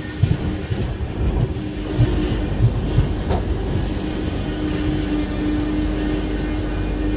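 Express train coach running at speed, heard from on board: a heavy rumble with wheels knocking over rail joints in the first few seconds. A steady tone sets in about halfway through.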